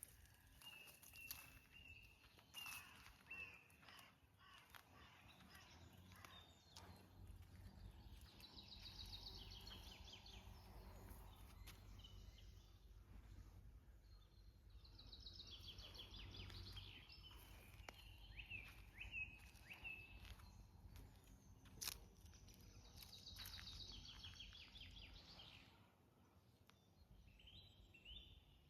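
Faint wild birdsong: short chirps, and a rapid trilling phrase repeated three times about seven seconds apart. A single faint sharp click comes about three quarters of the way through.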